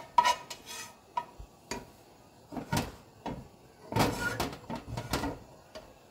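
Kitchen clatter: utensils and cookware clinking and knocking in a handful of separate hits, busiest about four seconds in.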